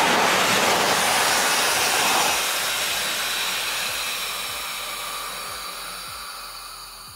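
ABS avalanche airbag backpack's twin airbags inflating from the gas cartridge after the activation handle is pulled: a loud rushing hiss that slowly fades as the balloons fill, then cuts off near the end once they are fully inflated.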